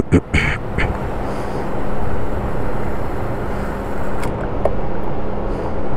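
Gasoline flowing from a pump nozzle into a motorcycle's fuel tank: a steady rushing and gurgling over the low, even hum of the fuel pump, with a few clicks at the start.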